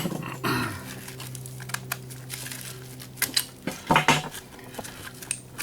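Scattered metal clinks and knocks as parts of an old Rival electric can opener are handled and pulled apart, with a cluster of knocks about four seconds in.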